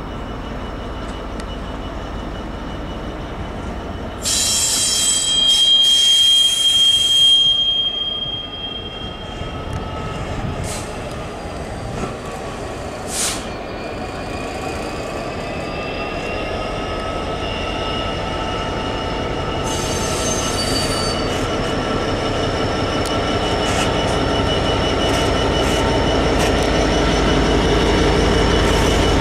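Class 66 diesel-electric locomotive, its two-stroke V12 running, hauling coaches slowly round a curve and growing louder as it approaches. Loud high-pitched wheel squeal from the flanges on the curve sets in about four seconds in for about four seconds, and again briefly about twenty seconds in.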